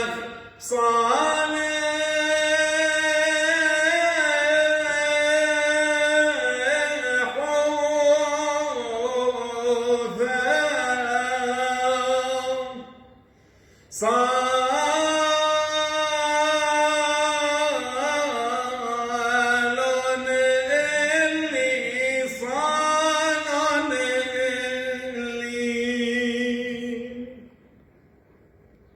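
A male voice chanting a Syriac church hymn unaccompanied, in two long phrases with slow, ornamented held notes and a brief breath between them. The singing stops shortly before the end.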